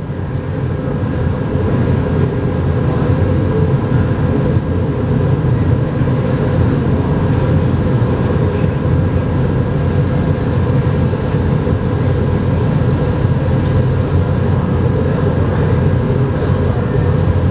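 Steady low hum and rumble inside a Las Vegas Monorail car standing at a station, with two faint steady tones above it; it swells over the first second and then holds level.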